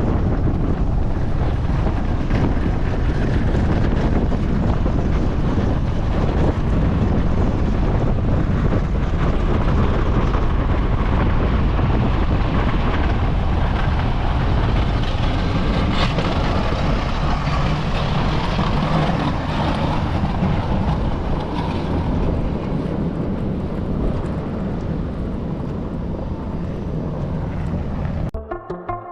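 Snowplow truck running while plowing: a steady low rumble with wind noise on the microphone. It cuts off suddenly near the end.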